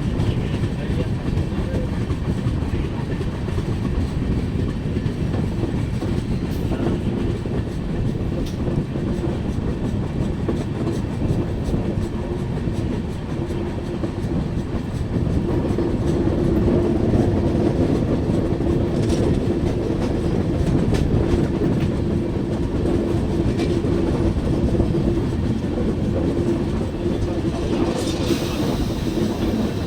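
Passenger train running on the rails, a steady noise of wheels on track. About halfway through, a steady hum joins in and the sound grows a little louder.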